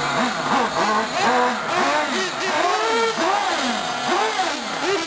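Two 1/8-scale nitro R/C buggy engines revving up and down over and over, their pitch rising and falling in quick overlapping sweeps as the buggies accelerate and brake.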